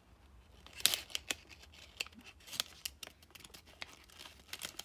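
Thin kami origami paper crinkling and crackling as fingers work the folded cube, in irregular sharp crackles, the loudest about a second in.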